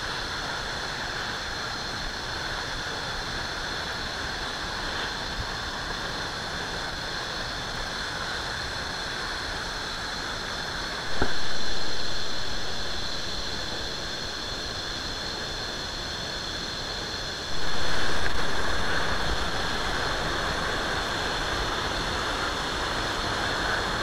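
Waterfall with only a modest flow of water, falling from a cliff into a pool: a steady rush of water. The rushing steps up suddenly about eleven seconds in and again about seventeen seconds in, easing off a little after each.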